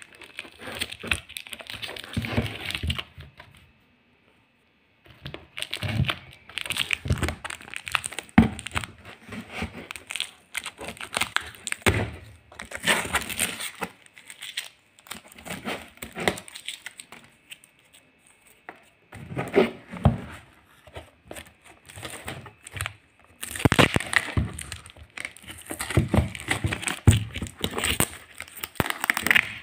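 Plastic courier packaging crinkling and tearing as it is crumpled and pulled off a cardboard box by hand, in irregular bouts with short pauses.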